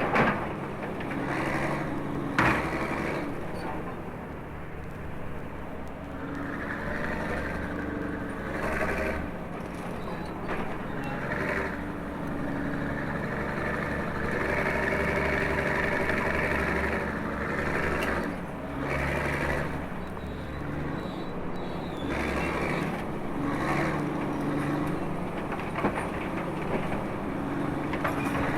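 A heavy vehicle's engine running steadily, its sound swelling and easing every few seconds, with a sharp click about two and a half seconds in.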